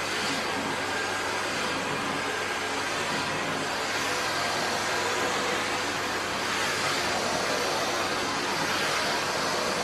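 Miele S511 Cat&Dog vacuum cleaner running steadily, its brush nozzle drawn through a long-haired dog's coat to suck out loose hair.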